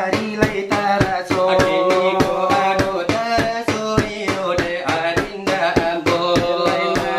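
Salawat dulang performance: singers chanting a Minangkabau devotional song while beating a brass dulang tray with their fingers in a quick, even rhythm of about four strikes a second.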